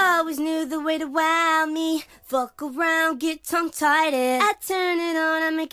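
Sped-up pop song: a male singer's voice, raised in pitch so it sounds high, sings long, bending notes over very little accompaniment, breaking off briefly a few times.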